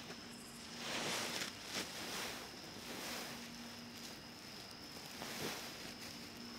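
Outdoor night ambience: a steady high-pitched tone and a faint low hum, with rustling, scraping swells every second or two.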